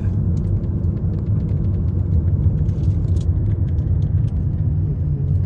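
Steady low rumble of a moving road vehicle, engine and road noise, with faint light ticks above it.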